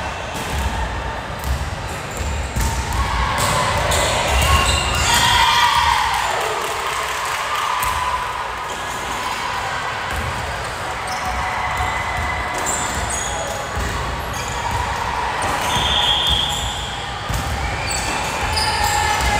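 Indoor volleyball game in a gym: sharp thuds of the ball being hit, and players and spectators shouting and cheering, with a loud falling shout about five seconds in.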